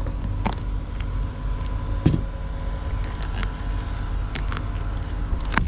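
Hands peeling and picking built-up tar off the edge of a painted corrugated metal roof panel: a few short sharp clicks and scrapes, the loudest about two seconds in and near the end, over a steady low rumble.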